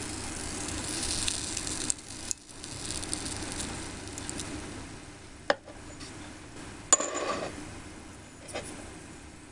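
Hot oil sizzling in a miniature frying pot, the hiss thinning out after about two seconds. Several sharp clinks of chopsticks and a small ceramic plate, the loudest a little past halfway.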